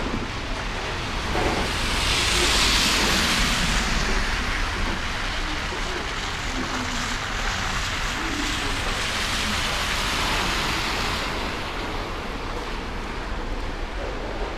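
City street traffic: a steady low rumble, with tyre hiss swelling as a vehicle passes about two seconds in and another passing later.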